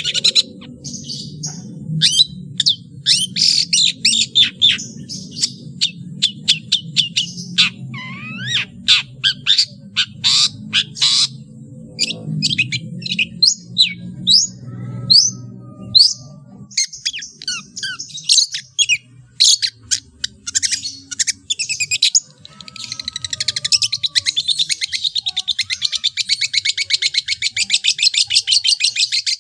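Long-tailed shrike (cendet) singing a varied song of sharp chirps and slurred notes, including mimicked calls of other birds. From about two-thirds of the way in it breaks into a long, fast rattling trill.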